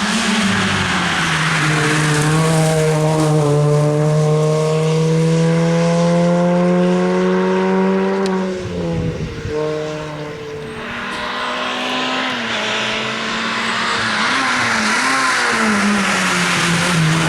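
Rally car engine at full throttle, its pitch climbing steadily for several seconds, then a break about nine seconds in before the engine pulls again over loud tyre noise.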